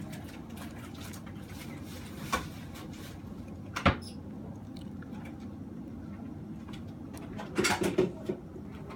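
Light clicks and taps of small tools and phone parts being handled. There is one sharp click about four seconds in and a short cluster of clicks and rattles near the end, over a steady low hum.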